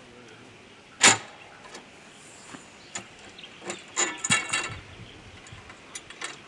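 Metal clicks and knocks as the camper bed's leg supports are adjusted for height. The loudest knock comes about a second in, and a short run of rattling clicks follows a little before halfway.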